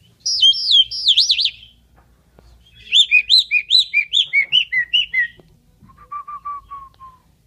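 Asian pied starling singing loud whistles: a warbling phrase, then a rapid run of about a dozen arched notes stepping down in pitch, then a lower series of short notes near the end.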